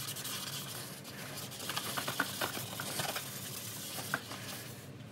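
Plastic tackle box being scrubbed fast: a quick, irregular run of scratchy strokes and small clicks.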